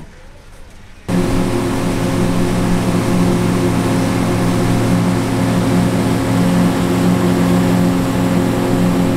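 Outboard motor of a fishing boat running steadily at speed, with wind and water rushing past. The sound cuts in abruptly about a second in.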